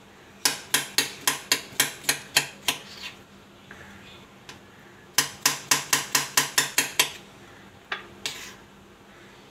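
Kitchen knife chopping strawberries directly on a stone countertop: the blade clicks sharply against the stone about four or five times a second, in two runs of a couple of seconds each with a pause between, then two single strokes near the end.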